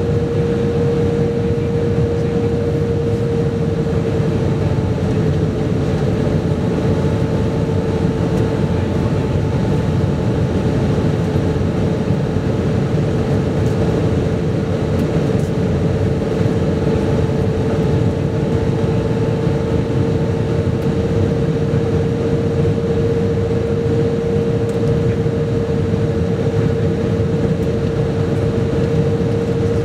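Airbus A320 cabin noise from a seat over the wing in flight: a steady rush of air and engine noise with one steady droning tone running through it.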